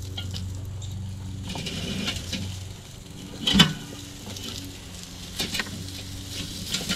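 Stainless-steel drumstick rack being lifted and shifted over a kettle grill's charcoal grate, with light metal clinks and one sharp metal clank about three and a half seconds in, over sizzling from the hot charcoal and chicken and a steady low hum.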